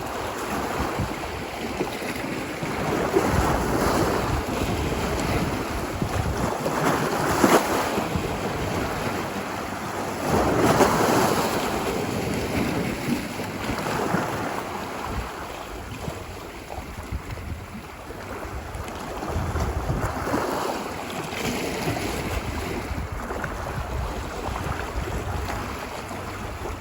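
Ocean surf washing ashore, a wave surging in every few seconds over a steady rush of water.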